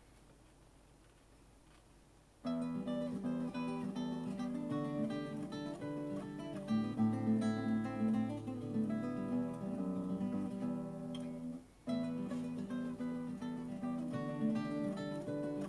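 Classical guitar playing the opening bars of a song, coming in about two and a half seconds in after a quiet start. It breaks off briefly near the end, then picks up again.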